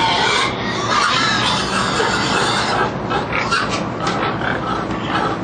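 Many pigs squealing inside a crowded livestock transport trailer. The high-pitched din is dense and unbroken for the first three seconds or so, then breaks into shorter, separate squeals.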